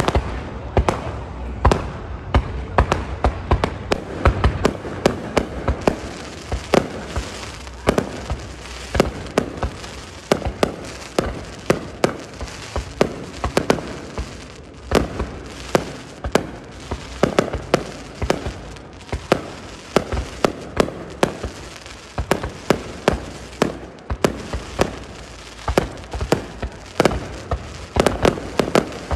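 Aerial fireworks display: shells bursting in a rapid, irregular barrage of sharp bangs, often several a second, over a steady low rumble.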